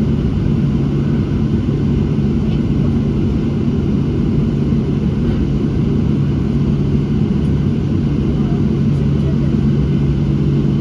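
Inside the cabin of a Boeing 737-700 taxiing on its CFM56-7B engines at idle: a steady low drone with a constant hum, unchanged throughout.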